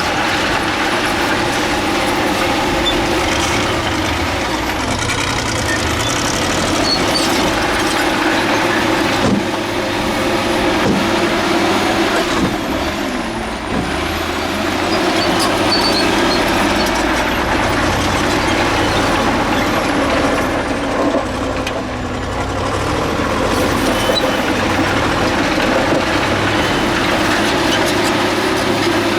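Diesel engines of heavy earthmoving machinery, a bulldozer and dump trucks, running steadily at work.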